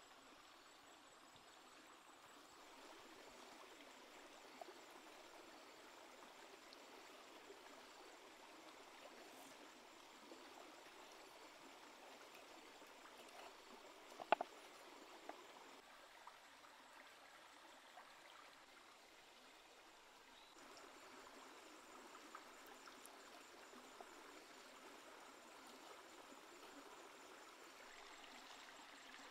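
Faint, steady rushing like running water, with a few light knocks; the loudest, about halfway through, is a cleaver chopping squid on a wooden cutting board.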